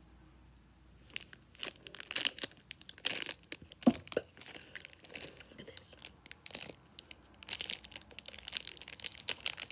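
Plastic snack wrapper crinkling and crackling as it is handled and torn, in irregular bursts that start about a second in and are busiest near the end. There is one short squeak about four seconds in.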